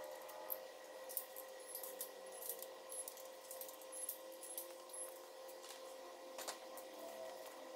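Light metallic clicks and taps as pushrods are slid through an LS3 cylinder head and dropped into the lifter cups, with one firmer tap about six and a half seconds in. A faint steady hum runs underneath.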